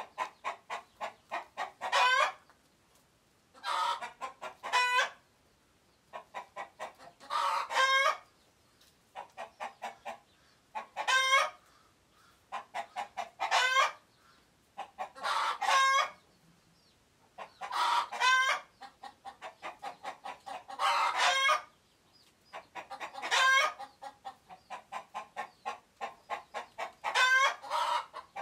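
Chicken giving its alarm call over and over: a quick run of short clucks, about three a second, builds each time into one loud, drawn-out squawk, about ten times. It is the alarm a chicken raises when something or someone frightens it.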